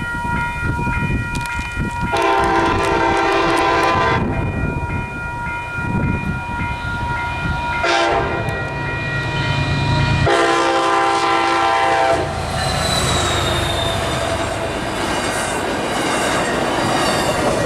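MBTA commuter train's air horn sounding for a grade crossing: several long blasts of a multi-note chord, the last about four seconds long. After the horn stops the train passes close by, its wheels clattering over the rail joints with a high wavering squeal.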